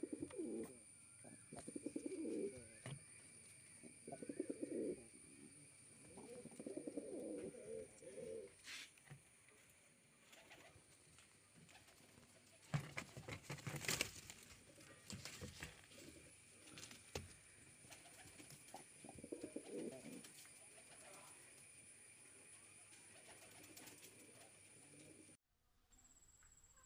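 Fancy pigeon cooing: a series of low, rolling coos about every two seconds, a pause, then another coo later on. A few sharp clicks come about halfway through, over a faint steady high whine.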